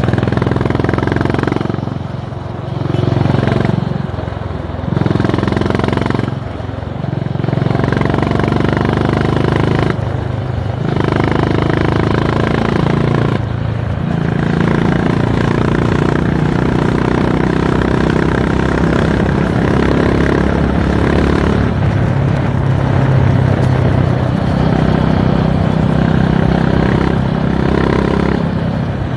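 Honda H'Ness CB350's single-cylinder engine and exhaust under way. The engine note dips briefly several times in the first half, then runs steadily.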